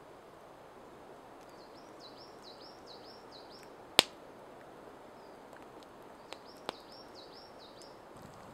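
A small songbird sings two runs of repeated high, curved whistled notes, about three a second, over a steady outdoor hiss. A single sharp crack sounds about four seconds in, with two fainter clicks a couple of seconds later.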